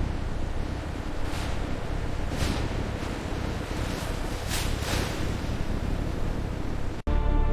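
Steady rushing noise over a low rumble, swelling in several brief whooshes. After a sudden dropout near the end, music with sustained tones begins.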